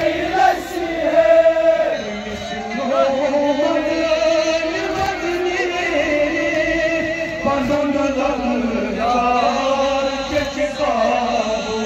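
A group of men chanting a Kashmiri noha (mourning elegy) together with its reciter, their voices held on long sung notes without a break.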